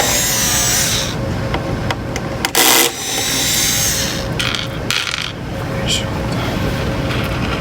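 Small metal screws and a screwdriver handled on a work surface: rubbing and scraping, a loud clatter near the middle, then a few light knocks.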